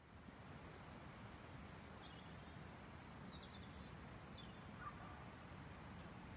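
Faint outdoor field ambience: low steady wind noise on the microphone, with a few faint high bird chirps scattered through the first four seconds.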